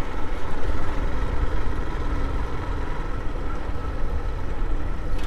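Motorcycle engine running steadily while riding, heard from the rider's seat, with a continuous low rumble.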